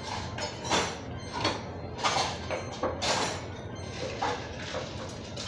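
A person slurping and eating spicy noodle soup close to the microphone. Several wet slurps come about a second apart, the longest about three seconds in.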